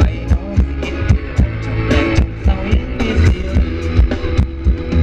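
Live band playing upbeat Thai ramwong dance music: a steady drum-kit beat of about three hits a second over a heavy bass line, with guitar and other pitched instruments.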